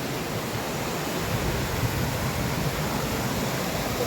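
Waterfall rushing: a steady, full hiss of falling water with no breaks.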